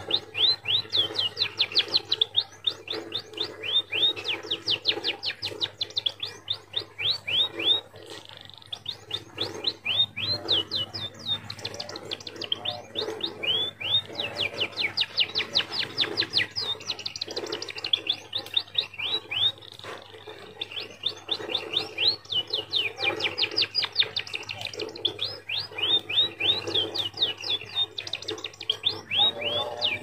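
A small pet finch singing. It gives rapid runs of high, quickly falling notes in repeated bursts, each a few seconds long, with short pauses between.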